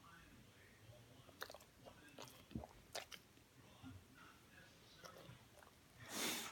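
Faint, scattered smacking clicks from a pet's mouth, with one short breathy huff near the end.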